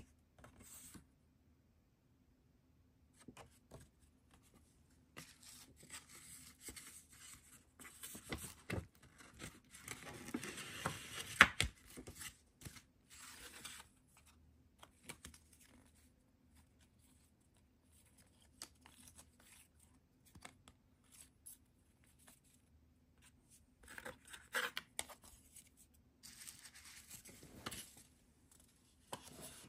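Paper and plastic album packaging being handled and unpacked: irregular rustling and tearing in short clusters with quiet gaps, and one sharp tap near the middle.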